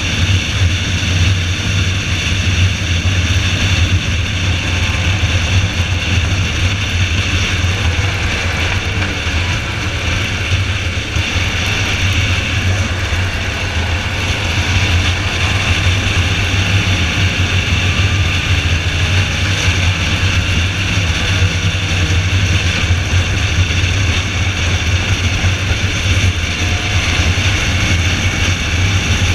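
A car's engine and road noise heard from inside the car at speed: a steady low drone with the engine's pitch drifting faintly up and down.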